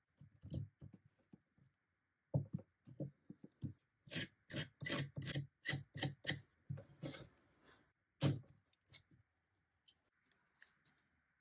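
Quick scraping strokes of a hand tool against the veneered edge of a wooden cabinet top, where a lifting piece of veneer has just been glued back. There are a few single scrapes, then a run of two or three strokes a second between about four and seven and a half seconds in.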